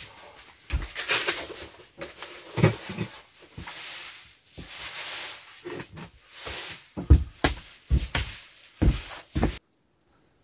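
Rustling of a winter jacket being pulled on and handled, with scattered knocks and thumps, the loudest a few seconds before the end; the sound cuts off suddenly near the end.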